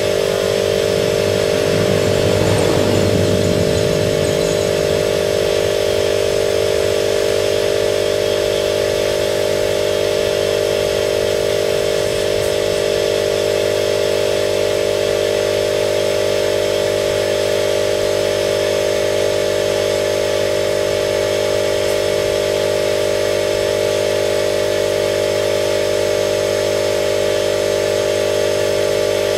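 A motor from spray-painting equipment hums and whines steadily at one unchanging pitch. About two to four seconds in it briefly swells and turns rougher.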